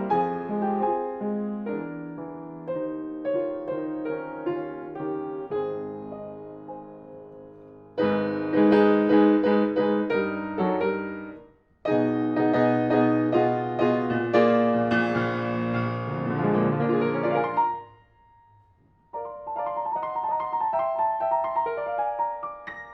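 1961 Broadwood baby grand piano being played: a quieter passage that fades, then louder full chords entering suddenly about a third of the way in, a brief break, a dense loud passage, a short pause with a note still ringing, and lighter notes higher up near the end.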